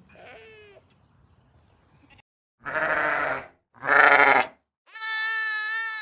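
Sheep bleating: a faint bleat at the very start, two loud, rough bleats in the middle, and one long, clear, high bleat near the end.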